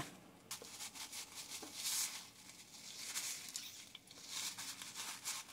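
A few soft scraping, tearing strokes as a metal offset spatula slits open a hot, puffed masa gordita, with a paper towel rustling against it.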